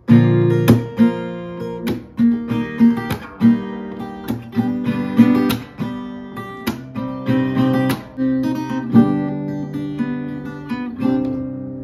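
Acoustic guitar with a capo on the neck, played by hand: plucked notes and chords, each ringing on after it is struck.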